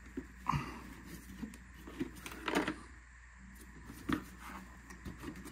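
Light knocks and clicks of hard plastic being handled as a bracket is worked loose from a car headlight assembly housing, three or four separate knocks.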